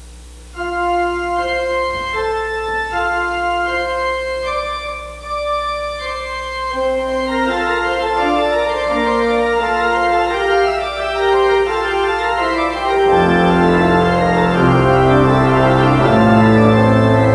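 Church organ playing a slow piece: held single notes at first, more voices joining about six seconds in, and deep pedal bass notes coming in for the last few seconds, filling out the sound.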